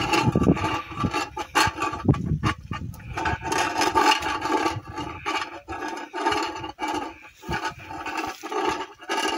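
Wind-driven tin-can friction noisemaker: the sack sail swings the arm, and the rubbing against the can gives a rough, pitched rasp in uneven pulses, several a second. Low wind rumble on the microphone during the first three seconds.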